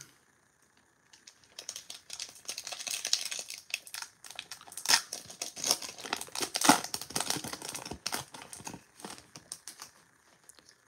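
Foil wrapper of a Topps baseball card pack being torn open and crinkled by hand: a dense run of sharp crackles and rustles that starts about a second in and dies away near the end.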